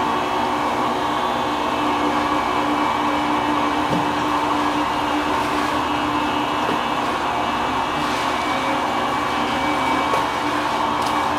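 Steady, loud hum of industrial machinery, holding several even tones without change, with a few faint knocks as cardboard boxes are handled.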